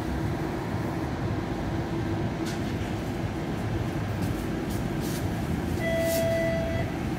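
Interior running noise of a TTC streetcar: a steady low hum and rumble as the car slows and stands. Near the end a steady tone sounds for about a second.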